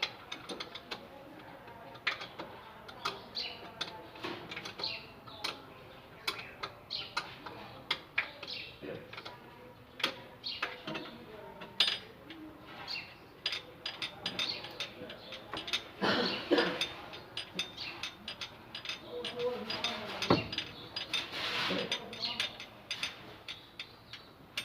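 Mechanic's hand tools on the starter-motor bolts: a ratchet wrench clicking in short irregular runs, with metal clinks and a sharp knock about two-thirds of the way through.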